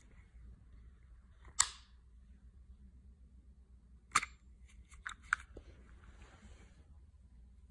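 Hertzko self-cleaning slicker brush handled while grooming: a few sharp plastic clicks and scrapes. Two loud ones come about one and a half and four seconds in, then a quick pair near five seconds, typical of the retract button clicking the wires in and out.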